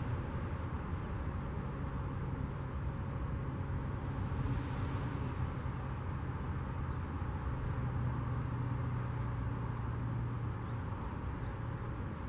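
Road traffic passing close by: cars, then a semi-truck with a long trailer rolling past, a steady low drone of engines and tyres that grows stronger in the second half.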